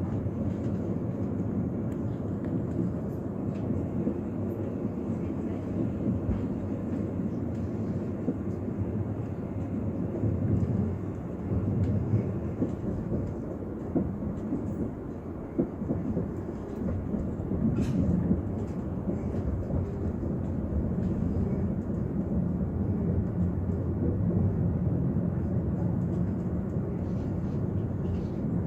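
Passenger train running along the track, heard from inside the carriage: a steady low rumble of wheels and running gear, with a few faint clicks.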